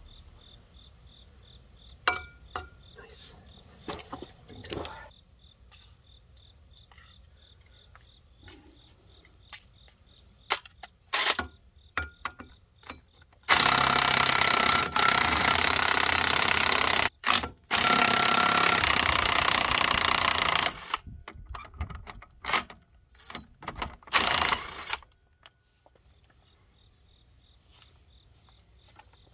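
Cordless impact wrench hammering as it runs the bolts out of a Takeuchi TL130 track loader's drive sprocket. There are two runs of about three and a half seconds each, split by a brief pause past the middle, then a short burst near the end. Scattered light metal clinks of bolts and tools come between.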